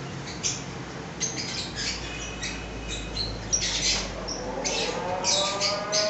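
Caged lovebirds, Fischer's and masked, chattering with many short, sharp squawks and chirps. About three-quarters of the way in, a steady hum with several overtones rises in pitch and then holds.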